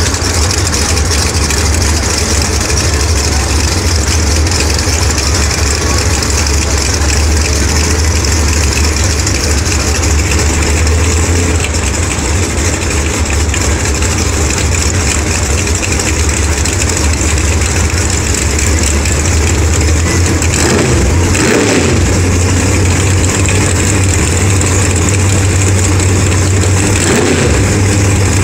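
Drag race car engines running loudly at the starting line, a steady heavy rumble, with a short rev about twenty seconds in.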